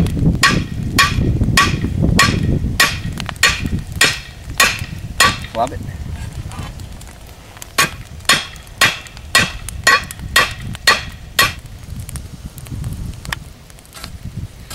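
Hammer blows on hot steel rebar: a steady run of ringing metal strikes about two a second, a pause of a couple of seconds, then a second run of strikes at the same pace.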